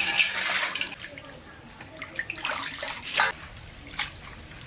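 Water splashing and pouring for about the first second, then a few sharp knocks or clatters.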